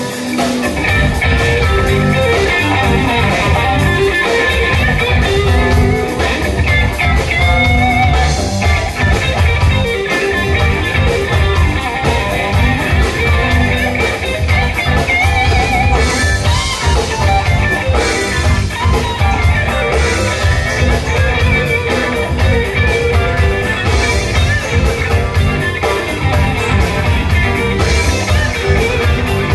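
Live rock band playing: electric guitars over bass guitar and a drum kit, with the bass and drums coming in just after the start.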